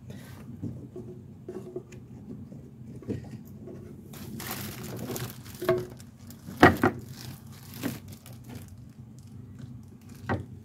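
A pleated cabin air filter is slid and pushed into its plastic housing slot by hand, rustling and scraping against the plastic. There are a handful of sharp knocks as it is shoved home, the loudest about two-thirds of the way through.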